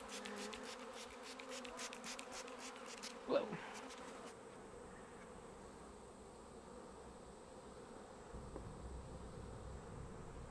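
Honey bee swarm buzzing with a steady low hum, with one bee zipping loudly close past about three seconds in. Over the first three seconds, a quick run of squirts from a hand spray bottle.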